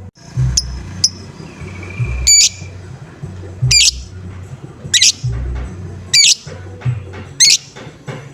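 A lovebird gives short, harsh, repeated calls, about one every second or so. This is the 'ngoek-ngoek' pumping call played as bait to set other lovebirds calling. Background music with a low, steady beat runs underneath.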